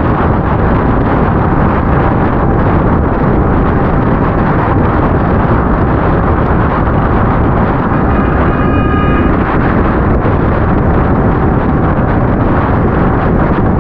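Steady wind buffeting on the microphone of a moving motorcycle, with the ride's rumble underneath. About eight seconds in, a short pitched tone sounds for just over a second.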